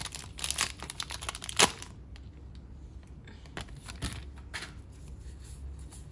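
Foil trading-card booster pack wrapper crinkling and being torn open, with a loud rip about a second and a half in. After that, quieter rustles and a few soft clicks as the cards are slid out of the wrapper and handled.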